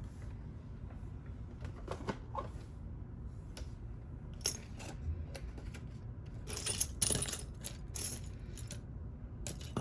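Light metal clicks and clinks of a small lock cylinder and hand tools being worked, with a denser bout of rattling metal clinks about seven seconds in.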